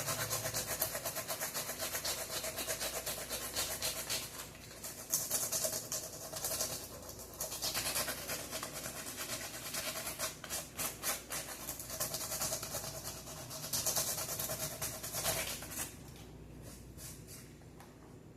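Sandpaper rubbing by hand in rapid back-and-forth strokes over the front of a sealed model ship. The strokes stop a couple of seconds before the end.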